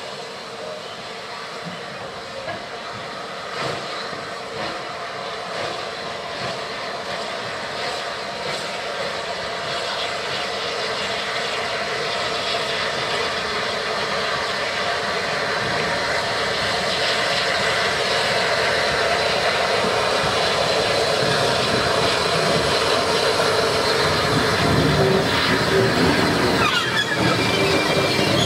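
Rebuilt Bulleid Battle of Britain class steam locomotive 34053 'Sir Keith Park' drawing near with a short train and running past. It makes a steady rushing noise that grows steadily louder as it comes closer.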